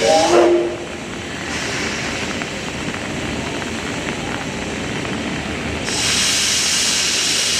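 Steam hissing steadily from a JNR C57 steam locomotive, with no exhaust beat, growing louder and sharper about six seconds in. A brief pitched sound, the loudest moment, comes at the very start.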